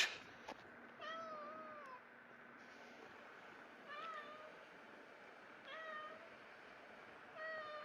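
Cat meowing four times, a couple of seconds apart: the first a longer meow, about a second, that wavers and falls at its end; the others are shorter.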